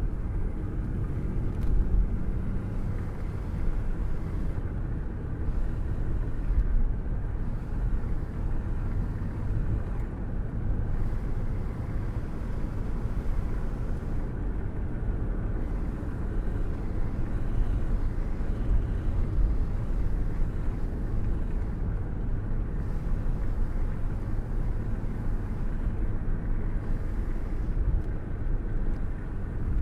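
Thunderstorm ambience: a steady, low rumbling wash of rain and thunder with little high hiss and no sharp cracks.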